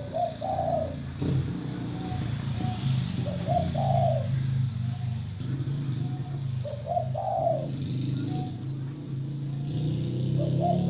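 Spotted dove (tekukur) cooing. Four phrases come about every three and a half seconds, each a few soft short coos leading into a louder, longer coo. A steady low rumble runs underneath.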